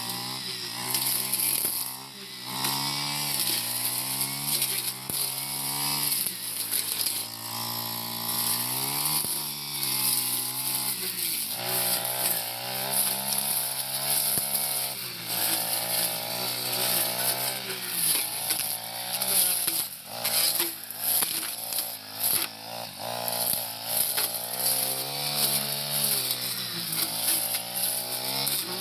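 Four-stroke brush cutter engine revving up and down over and over as it cuts tall grass and brush, its pitch rising and falling every few seconds.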